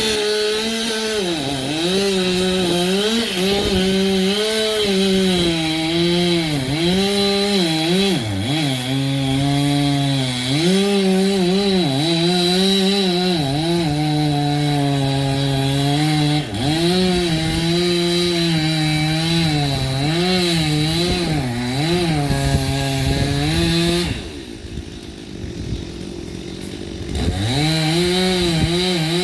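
Two-stroke chainsaw running at high revs and cutting wood, its pitch repeatedly sagging under load and recovering. About 24 seconds in it drops off to a lower level, then revs back up near the end.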